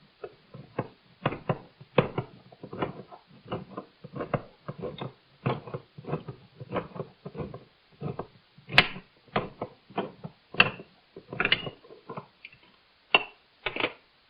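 A handheld can opener being cranked around a tin can, its cutting wheel biting the lid in a run of short metallic clicks and crunches, two or three a second, with a few louder snaps near the end.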